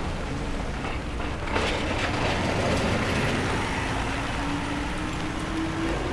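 Street traffic: a large vehicle's engine rumbling with hiss from tyres on the street, the engine's pitch rising over the last couple of seconds as it speeds up.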